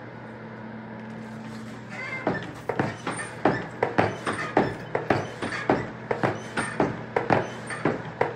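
Sharp, irregular metal knocks and clinks, a few a second, starting about two seconds in, from an iron tool being worked about in a coal forge fire. A steady low hum runs underneath.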